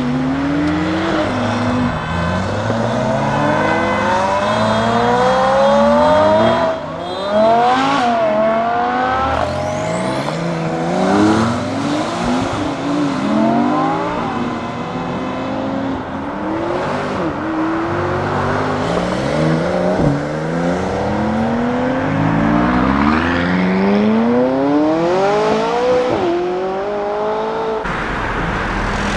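Lamborghini Huracán STO's naturally aspirated V10 accelerating hard, its note rising through the gears and dropping sharply at each upshift, over several pulls in a row.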